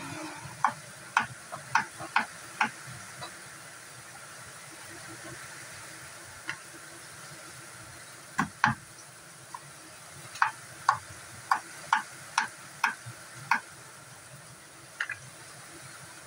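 Kitchen knife chopping carrots on a wooden chopping board: sharp, irregular knocks in bursts of several quick strokes, with pauses between the bursts.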